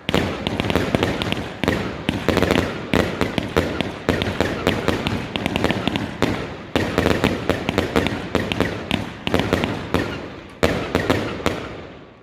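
Fireworks going off in a dense run of rapid bangs and crackles with a low rumble underneath, dying away near the end.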